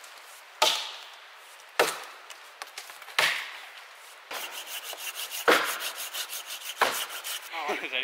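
An axe chopping into a felled beech trunk: five sharp, woody strikes about one to two seconds apart.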